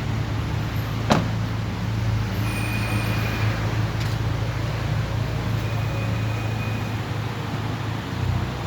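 Ford Mustang 2.3 EcoBoost's turbocharged four-cylinder engine running steadily with a low, even drone, not revving. A single sharp click about a second in.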